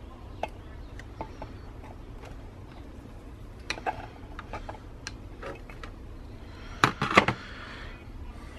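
Flat-blade screwdriver prying at the plastic lens of a Harley-Davidson Daymaker LED headlight: scattered light clicks and scrapes, with a burst of louder clacks about seven seconds in, over a steady low hum.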